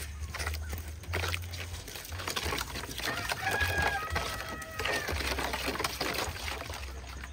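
A rooster crowing, its longest call between about three and five seconds in, over the clinks and wet scraping of a spoon stirring marinade in a stainless steel bowl.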